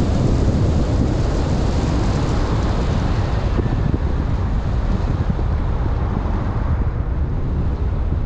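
Steady road noise from a moving car: tyre and wind rush, with wind buffeting the microphone. The higher hiss thins out over the last couple of seconds.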